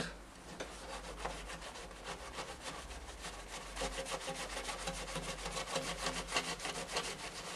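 Polishing compound being rubbed by hand onto a motorcycle exhaust downpipe in quick back-and-forth strokes, several a second, making a steady scratchy rubbing sound.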